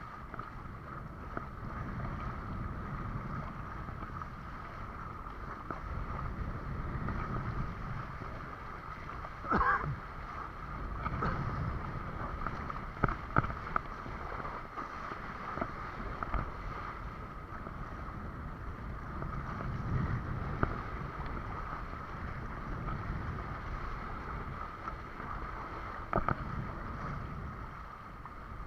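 Wind on the microphone and water rushing past a windsurf board under sail, with a steady whine throughout. A few sharp knocks cut through: one about ten seconds in, two close together around thirteen seconds and one near twenty-six seconds.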